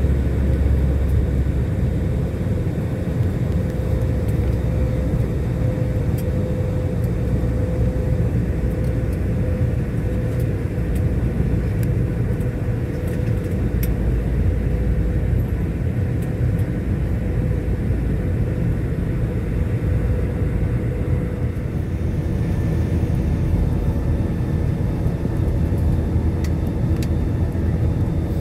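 Cabin noise of an Airbus A320 jet airliner in flight, heard from a window seat near the engine: a steady, loud rumble and rush of jet engine and airflow, with a constant hum whose pitch shifts slightly about two-thirds of the way in.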